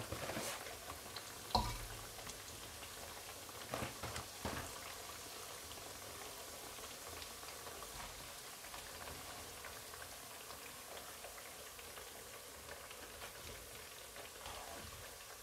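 Hot oil sizzling and bubbling steadily around battered tahu and tempe pieces frying in a non-stick wok. A few sharp knocks come in the first few seconds.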